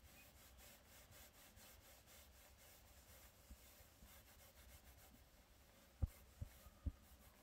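Near silence with faint, soft rubbing, as of hands lathering and working shampoo into hair, then three soft low thumps about six seconds in.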